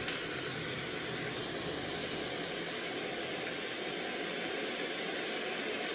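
Floodwater of a river in spate rushing past in a steady, unbroken noise.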